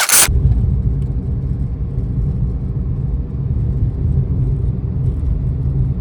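Steady low vehicle rumble that cuts off suddenly at the end.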